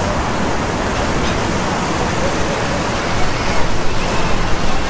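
Steady rush of water from a two-tiered fountain, its jets splashing into the basins.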